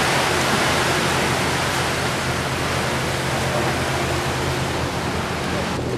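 Yamaha outboard motor running at a steady speed, a low drone under a loud, even rush of wind and water from the moving boat. The hiss drops away abruptly at the very end.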